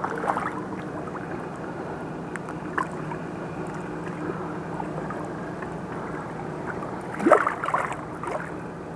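Steady low engine hum running without change. About seven seconds in, a short loud rising sound cuts across it.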